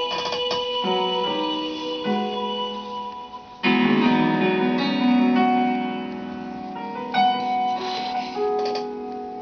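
Piano music: sustained chords ringing, with a louder new chord entering a little under four seconds in, then slowly fading.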